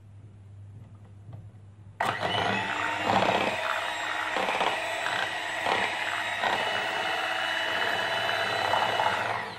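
Electric hand mixer switched on about two seconds in and running steadily, its beaters whisking a runny cream, condensed milk and banana mixture in a bowl; it winds down near the end.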